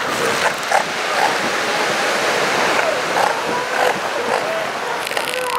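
Steady rush of ocean surf, with short chirping calls scattered throughout.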